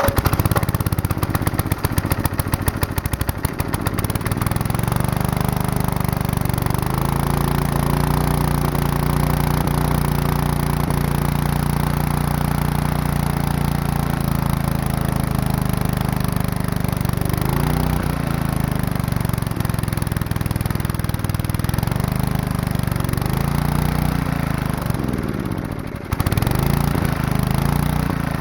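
Small single-cylinder engine with a draw-up (suction-lift) carburetor running steadily, its speed wavering up and down a few times. This is typical of a carburetor that is pretty much shot.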